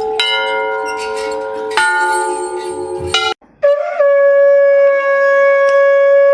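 Temple bell ringing, struck again twice, then after a short break a conch shell (shankh) blown in one long steady note lasting about three seconds.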